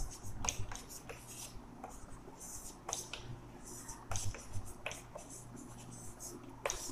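Chalk writing on a chalkboard: sharp taps where the chalk meets the board and short scratchy strokes between them, over a faint steady low hum.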